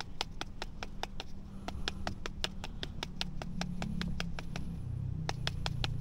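Car vacuum cleaner's filter tapped rapidly against a concrete kerb to knock the dust out of it, about five sharp knocks a second with a brief pause near the end.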